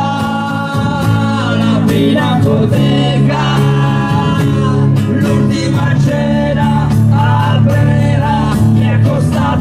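Live rock band playing: electric bass and drums keeping a steady beat under a voice singing the melody.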